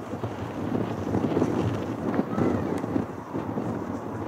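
Wind gusting on the microphone over the low, steady rumble of an Airbus A350-941's Rolls-Royce Trent XWB engines on final approach.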